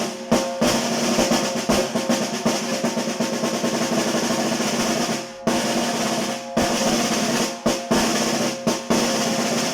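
Banda snare drum (tarola) played in continuous rolls broken by sharp accented strokes, with a brief break about five and a half seconds in. The drum rings somewhat out of tune; its owner blames stripped tuning screws that keep it from being tuned properly.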